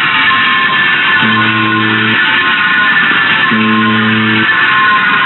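Buzzer giving off a loud, heavily distorted noise, with a low buzzing tone just under a second long that comes back about every two seconds.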